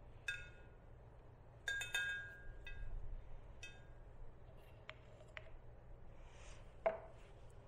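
A paintbrush clinking lightly against a glass rinse-water jar, four or five short ringing taps in the first few seconds, followed by a couple of fainter ticks.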